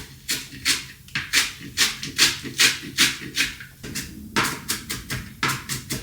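Knife chopping fresh herbs on a cutting board in quick repeated strokes, about two to three a second, with a short pause a little before four seconds in.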